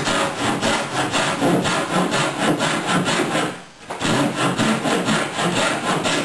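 Quick back-and-forth strokes of a thin-bladed hand pull saw cutting through the butt joint between two wooden boat rails, with a short pause about halfway. The saw is being run through the joint to close it up to a tight, square fit.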